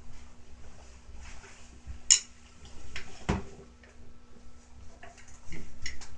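Wooden drumsticks being picked up and handled at an electronic drum kit: a few scattered clicks and knocks, the sharpest about two seconds in and a duller knock about a second later.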